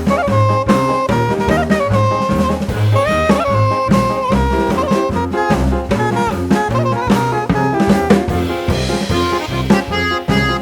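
Background jazz music: a saxophone-like lead melody over a steady drum beat.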